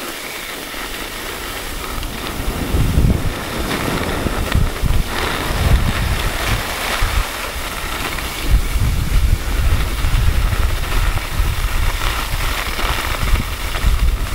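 Wind buffeting the camera microphone while skiing downhill, with the hiss of skis sliding over packed snow; the gusty rumble gets louder about two seconds in.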